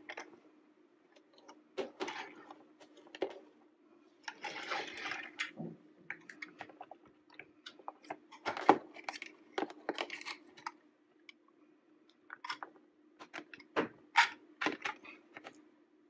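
Plastic toy bulldozer and dump truck clicking and knocking as they are handled, with crumbly Play-Doh clumps scraping and dropping into the plastic trailer. Short irregular clicks, with a longer scraping rustle about four seconds in, over a faint steady hum.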